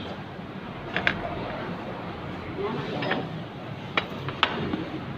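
Plates and cutlery clinking a few times, in two pairs about three seconds apart, over background chatter of diners.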